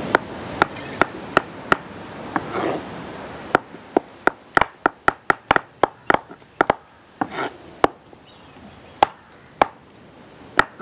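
Kitchen knives slicing button mushrooms on a wooden chopping board: a series of sharp taps of the blade against the board. The taps come sparsely at first, in a quick run in the middle and fewer near the end.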